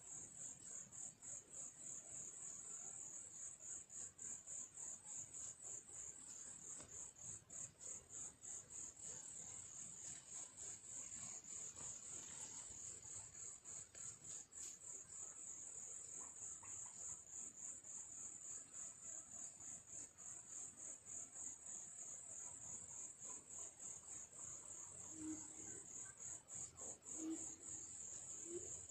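An insect chirping steadily in fast, even pulses at a high pitch, with a few short low calls near the end.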